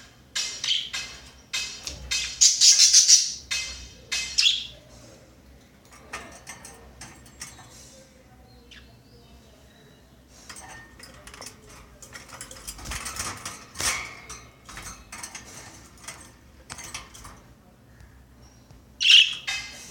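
Budgerigar calling in irregular bursts of high chirps and chatter, loudest about two to three seconds in and again just before the end.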